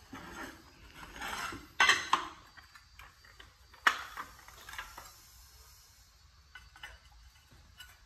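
Ceramic quarry tiles clinking and clacking against each other as they are lifted out of a cardboard box, with sharp knocks about two and four seconds in, then a few lighter taps.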